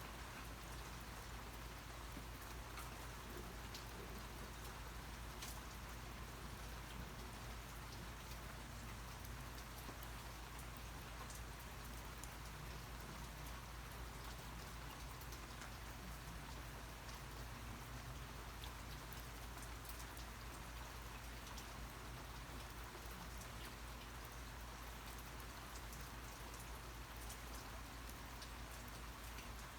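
Steady rain falling: an even, continuous hiss with scattered sharper drop ticks.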